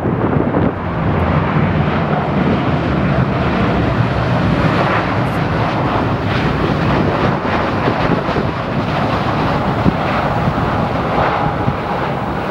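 Boeing 787-8 jet engines running steadily as the airliner lands, with strong wind buffeting the microphone. A steady whine comes in near the end.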